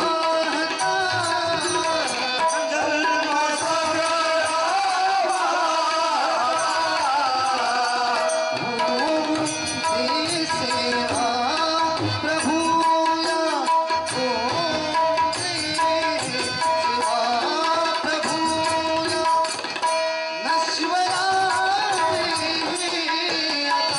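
Marathi bhajan: a man singing to a harmonium and tabla, with the tabla strokes prominent throughout.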